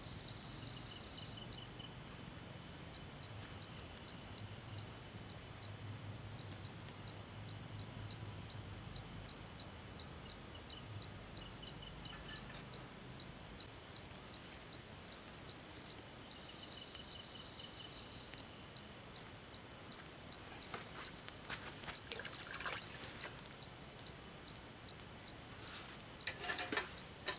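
Insects chirping steadily at a high pitch, with a regular tick about twice a second and short high trills now and then. A few soft knocks come near the end.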